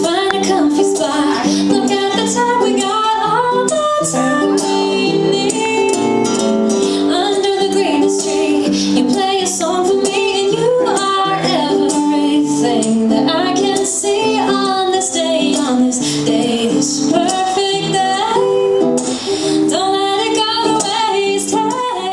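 A woman singing a song while strumming an acoustic guitar, a solo live performance.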